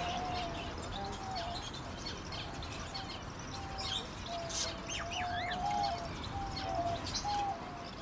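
Many aviary birds chirping and twittering in quick, scattered calls, over a low run of held notes that step up and down.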